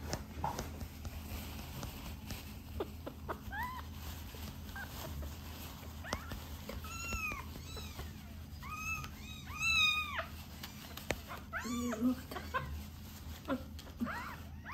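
Very young kitten mewing over and over as it is held belly-up and stimulated with tissue to toilet: a dozen or so short, high, arching cries that come faster in the second half.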